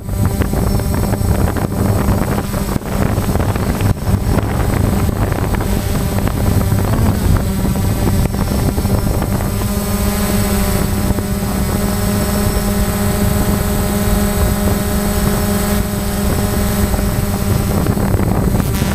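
Multirotor drone's motors and propellers running, a steady hum with several even tones that become steadier about halfway through.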